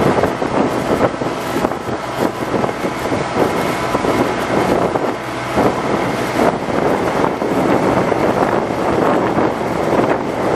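Wind buffeting the microphone on a small fishing boat under way, in gusts, over the steady drone of the boat's engine.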